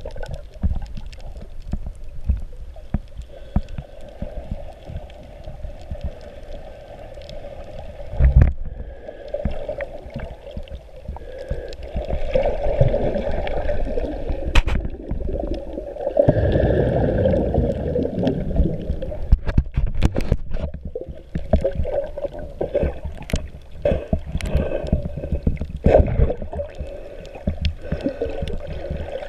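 Muffled underwater water noise picked up through a GoPro's waterproof housing: uneven sloshing and gurgling with scattered clicks, and one louder thump partway through.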